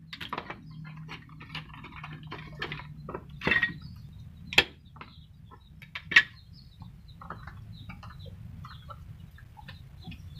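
A chicken clucking in short, repeated calls, with a few sharp knocks of wooden slats being handled in a plastic tray about four and a half and six seconds in.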